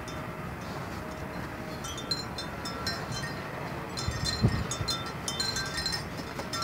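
Irregular light metallic tinkling, like wind chimes, over a steady low background rumble, growing busier after about two seconds, with one low thump midway.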